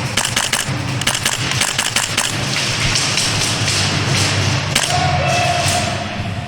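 Airsoft guns firing: irregular sharp cracks of shots and BB hits, some in quick strings, over music playing in the background.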